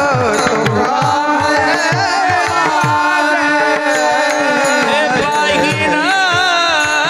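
Kirtan singing: a solo voice holds ornamented, wavering notes over a steady held accompaniment. Hand-drum bass strokes fall in pitch, about two a second.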